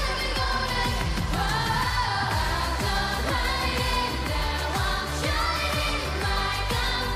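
Women singing a K-pop song over a steady beat and bass.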